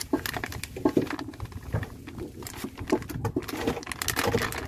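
Plastic packet of crispy-fry batter flour crinkling as it is tipped and shaken over a plastic tub, with the flour pattering into the tub in many quick, irregular rustles and ticks.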